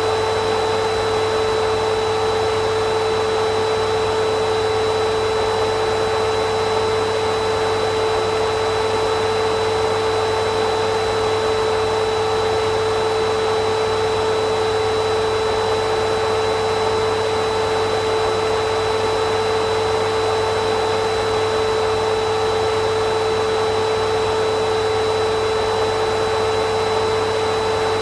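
Eureka Boss canister vacuum cleaner running steadily: a constant motor whine over the rush of air, with no change in pitch or level.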